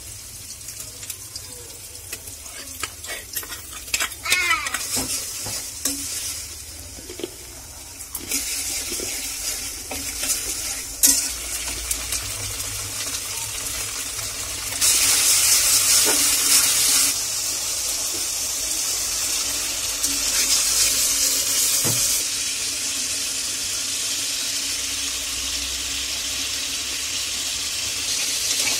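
Sliced onions sizzling as they fry in a steel karahi, stirred with a steel spatula that clicks and scrapes against the pan, with a couple of sharp knocks. The sizzle swells loud for a couple of seconds about halfway through.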